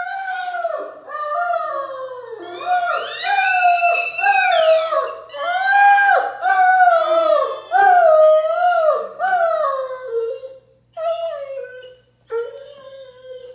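Wavering electronic howling from a dog's howler toy ball, set off as a Great Dane paws and noses it along the floor. It is a run of repeated rising and falling howls, loudest in the middle, with shorter, fainter ones near the end.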